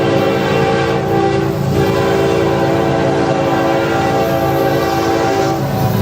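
Locomotive air horn sounding a chord over the rumble of the train: one blast breaks off about one and a half seconds in, and a second long blast follows and stops shortly before the end.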